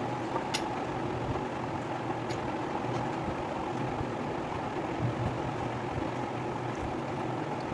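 Steady background hum, like a running fan or appliance, with a few faint brief clicks.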